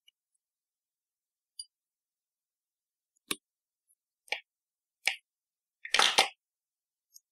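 A few sharp clicks of small metal hand tools, pliers among them, being set down and handled on a tabletop, three single clicks about a second apart followed by a louder short clatter about six seconds in.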